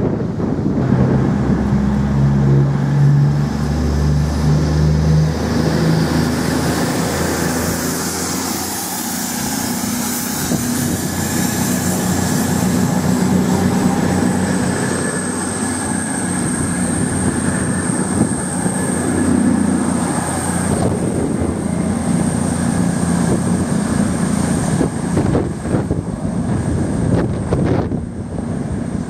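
CrossCountry Voyager diesel multiple unit running past, its underfloor diesel engines droning over wheel-on-rail rumble. A thin high whine comes in about a quarter of the way through and holds steady.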